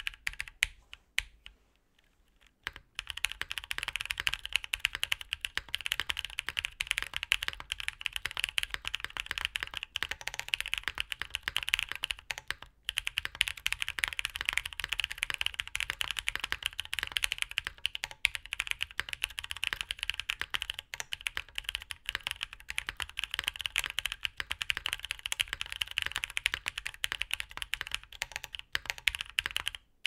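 Mechanical keyboard with stock Designer Studio White Jade tactile switches being typed on: a few key presses, a pause of about two seconds, then steady fast typing with dense, overlapping key clacks.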